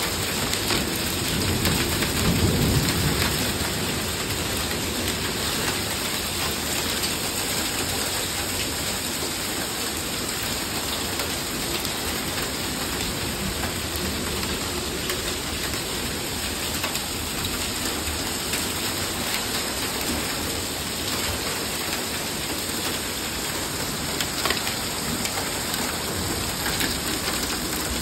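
Heavy rain pouring down in a thunderstorm, a steady dense hiss, with a low rumble of thunder swelling about two to three seconds in.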